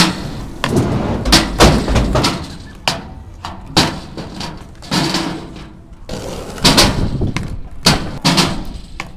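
Skateboard sounds: wheels rolling over asphalt and up a kicker ramp, broken by about a dozen sharp wooden smacks and clacks as boards are popped, land and hit the ground.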